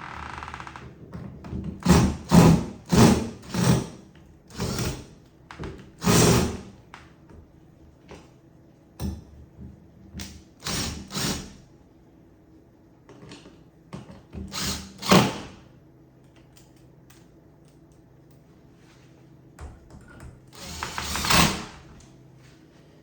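Work on a door hinge: a run of sharp knocks, clicks and clatter from the door and hand tools as screws go back into the hinge, with a longer rasping burst near the end.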